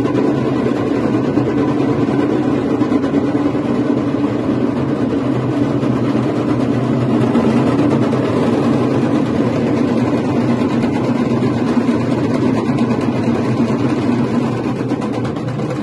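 A troupe of large metal-shelled dhol drums beaten together in a loud, dense, continuous pounding with no let-up.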